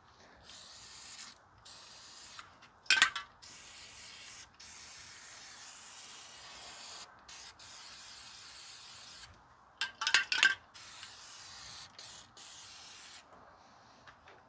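Aerosol can of Fluid Film rust inhibitor spraying onto a wheel hub in a run of hissing bursts with short breaks between them. Sharp knocks about three seconds in and a cluster of them around ten seconds are the loudest sounds.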